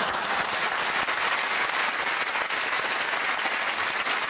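Studio audience applauding: a dense, steady patter of many hands clapping at once.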